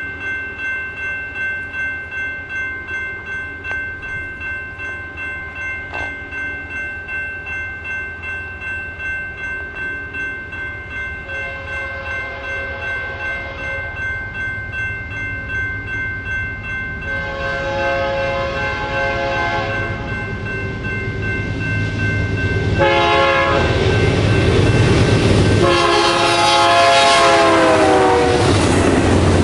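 Grade-crossing warning bell ringing steadily at about two strokes a second as a BNSF diesel freight approaches. The locomotive's air horn sounds the crossing signal, long, long, short, long, and the last blast drops in pitch as the locomotive passes. The noise of the passing train grows loud near the end.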